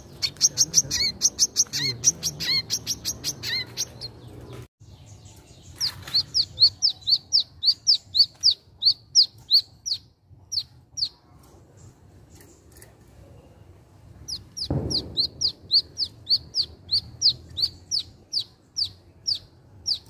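A caged sunbird, the wiceh (kolibri manggar), singing in three quick runs of sharp, high, down-slurred notes at a few notes a second, with pauses between the runs. A dull bump sounds at the start of the last run.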